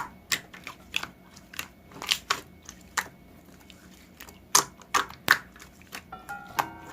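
Clay slime being squeezed and pressed by hand, giving irregular sharp pops and clicks, with several louder pops about two thirds of the way in. Faint background music comes in near the end.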